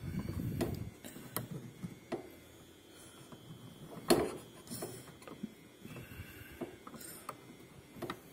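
Scattered small clicks and scrapes of a bolt being worked through a canard into a car's plastic front bumper by hand, with one sharper click about four seconds in.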